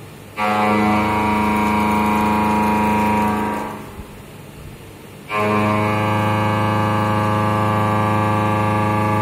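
CNC milling cutter with carbide inserts cutting a metal block in two passes. Each pass begins with a sudden, loud, steady pitched buzz as the cutter bites into the metal, and the first pass fades out about three and a half seconds in. The second pass starts about five seconds in, and a quieter machine hum fills the gap between the passes.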